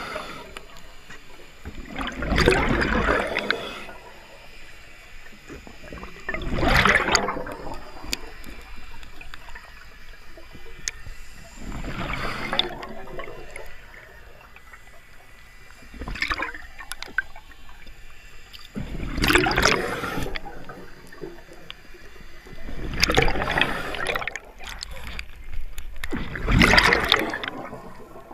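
Scuba diver breathing through a regulator, heard underwater: a gurgling burst of exhaled bubbles about every four seconds, with a faint hiss between breaths.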